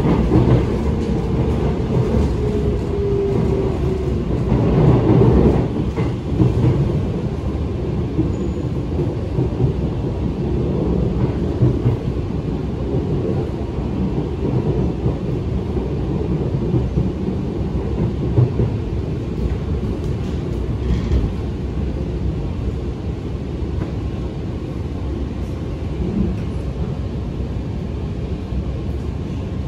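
Alstom Movia R151 metro train running, heard from inside the carriage: a steady low rumble of wheels on rail with occasional knocks. A whine falls slowly in pitch over the first few seconds.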